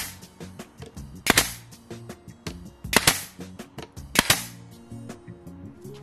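Pneumatic 18-gauge brad nailer firing three times, about 1.3, 3 and 4.2 seconds in, each shot a sharp double crack, over background music.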